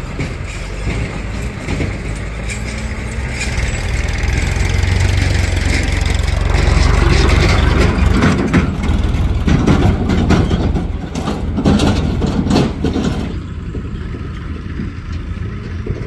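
Diesel engines of farm tractors and a backhoe loader running as they drive over dirt, building to a loud low rumble midway, with irregular knocks and rattles in the second half before the sound drops back.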